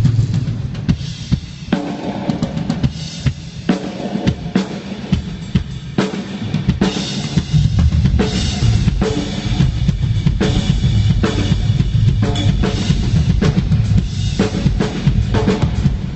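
Rock drum kit played through a big venue's PA in a sound check: kick drum, snare and cymbals keeping up a fast steady beat.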